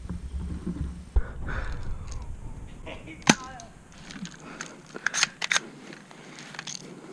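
Airsoft fire: a handful of sharp, separate snaps and clicks a second or two apart, the BB shots landing close by.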